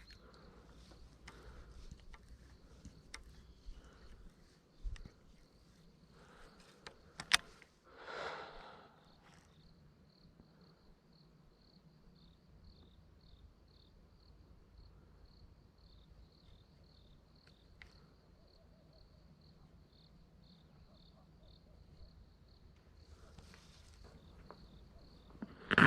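Cricket chirping in a steady, even run of high chirps. In the first few seconds there are a few sharp clicks and a brief rustle of handling noise.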